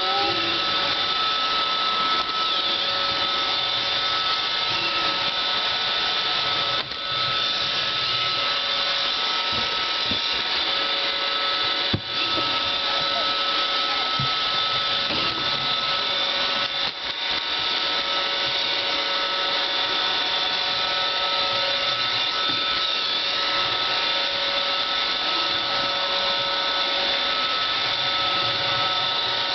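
iRobot Roomba 550 series robot vacuum running, heard up close from on top of the machine: a steady motor whine with several fixed high tones over a noisy hum. A few brief knocks and dropouts break it, one sharp knock about twelve seconds in.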